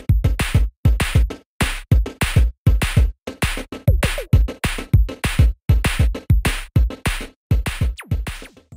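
Electronic music with a fast, punchy drum-machine beat: heavy kick-drum thumps and sharp snare-like hits, stopping suddenly near the end.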